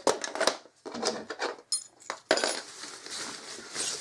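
Small metal camping-stove parts clinking and rattling as they are handled: a quick run of sharp clinks in the first half with one brief ringing note, a loud clink a little past halfway, then softer rustling of a fabric stuff sack.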